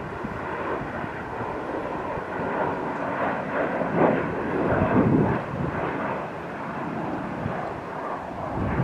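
Jet engines of a Ryanair Boeing 737 with its gear down on final approach, a steady rumble with a faint whine that swells a little midway as it flies past.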